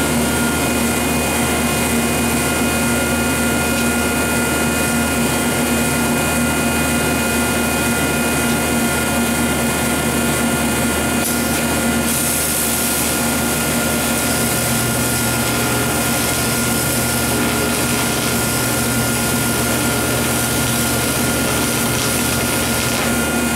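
Steady mechanical hum with constant tones. From about halfway in, an AC TIG welding arc on aluminium adds a hiss and a low buzz, which stop shortly before the end.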